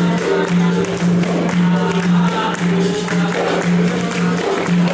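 Capoeira roda music: a berimbau and an atabaque drum keep a steady rhythm, with jingling percussion, hand-clapping and group singing over it.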